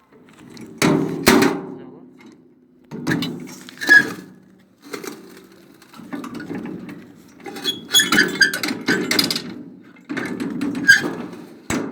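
Metal brick-making press being worked: irregular clusters of clanks, thuds and scraping as earth is filled and pressed in the mould, with a sharp click near the end.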